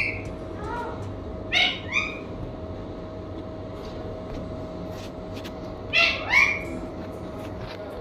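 Indian ringneck parakeet giving short calls, mostly in pairs: one at the start, two about a second and a half in, and two more about six seconds in.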